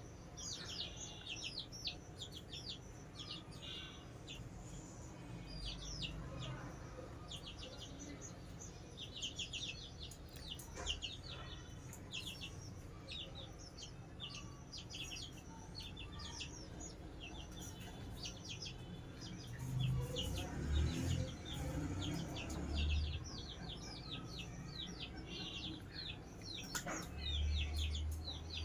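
Several young chicks peeping almost without pause: a rapid run of short, high cheeps that fall in pitch. A few low thumps and rumbles come about two-thirds of the way through and again near the end.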